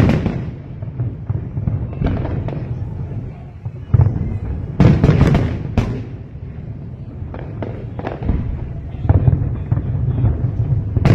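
Fireworks going off in a rapid series of bangs and crackles over a constant low rumble, with the loudest bursts at the start, around four to six seconds in, and near the end.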